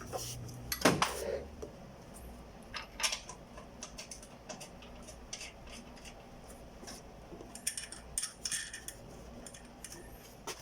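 Scattered light metal clinks and taps of bolts being started by hand into a car's engine mount, with a louder clank about a second in.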